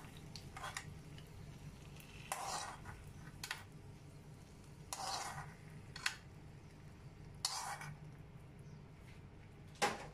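A metal spoon scraping and knocking against a cooking pot in short separate strokes, about every second or two, as fried cashews are stirred into payasam. A faint low hum runs underneath.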